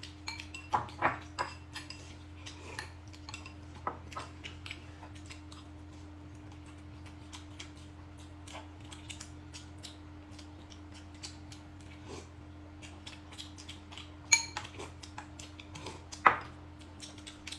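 Dishes and eating utensils clinking and knocking during a meal, in scattered taps. A ringing clink comes about 14 seconds in and a louder knock a couple of seconds later, over a faint steady hum.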